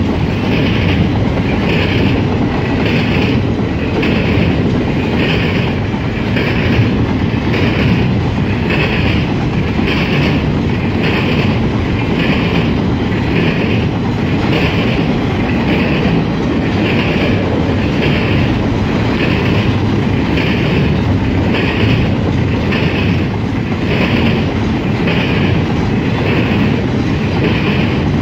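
Freight train of double-stack container cars rolling past at speed: a steady, loud rumble of wheels on rail, with a regular beat from the passing wheels about one and a half times a second.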